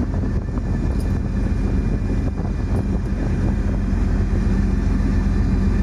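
Steady, loud low engine drone with an even hum, unbroken throughout.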